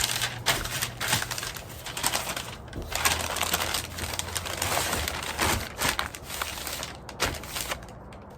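Wrapping material crinkling and rustling in irregular bursts as hands fold and rewrap a rack of pork ribs, with scattered small clicks and knocks.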